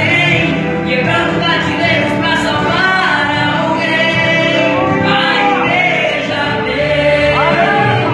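Gospel music: a choir of voices singing over instrumental accompaniment.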